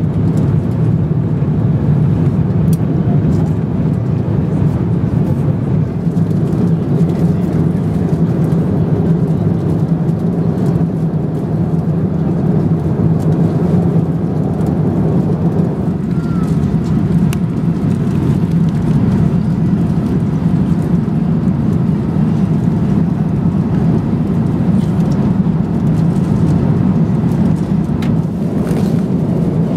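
Steady low rumble of an Airbus A350-900 in flight, heard inside the passenger cabin: engine and airflow noise.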